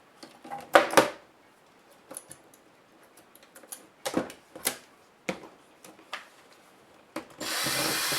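Laptop plastic parts and screws being handled, with scattered sharp clicks and knocks, then an electric screwdriver runs steadily for about a second near the end.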